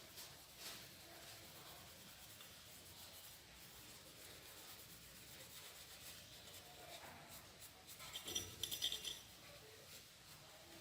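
Quiet handwork noise: faint rubbing, with a short run of small clicks and scrapes about eight seconds in.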